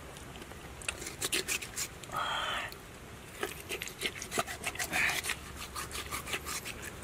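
Knife cutting and scraping through a crocodile's belly hide as it is slit open: a run of short rasping strokes and clicks, with a longer rasp about two seconds in.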